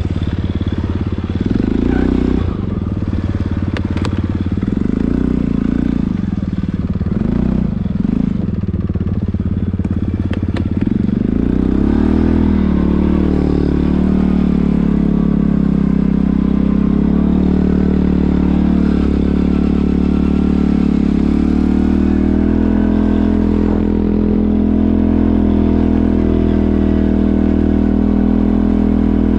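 Quad bike engine running while riding. Its revs rise and fall repeatedly for about the first twelve seconds, then hold a steady, slightly rising pitch.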